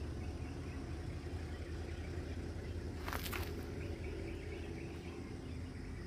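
Steady low outdoor rumble, with one brief rustle about three seconds in as a captured bird is worked free of a mist net.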